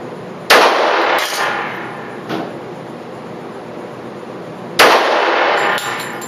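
Gunshots echoing in an indoor shooting range: two loud shots about four seconds apart, each ringing on for about a second, with fainter shots between and near the end.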